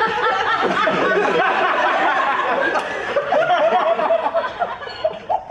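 Audience laughing, many voices at once, thinning to one or two laughs near the end.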